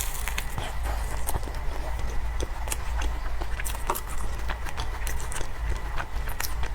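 Close-miked chewing of an egg tart: irregular small crunches and wet mouth clicks over a steady low hum.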